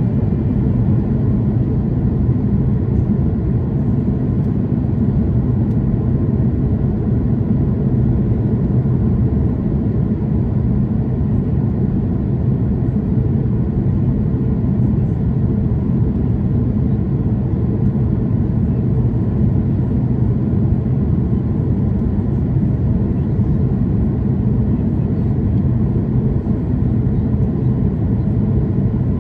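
Steady cabin noise of a jet airliner in flight, heard at a window seat over the wing: an even, unchanging rumble of engines and rushing air, low-pitched.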